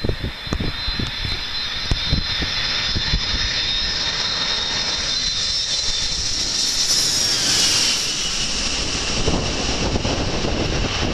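Boeing 747SP's four turbofan engines passing low overhead on landing approach. A high fan whine over a broad rush grows louder, then drops sharply in pitch about seven seconds in as the jet goes over. Wind buffets the microphone near the start and end.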